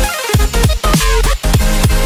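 Loud electronic dance music with a heavy beat and deep bass notes that slide down in pitch on each hit.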